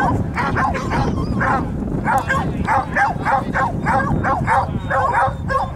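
A pack of foxhounds giving tongue: many short yelping and baying cries overlapping, about three or four a second.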